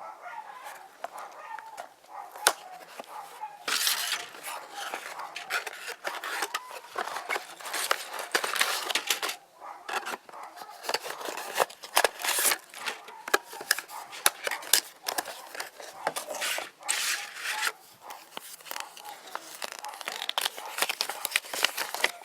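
Plastic packaging crinkling and tearing, in long noisy stretches broken by many sharp clicks, as a building-brick set is opened and handled.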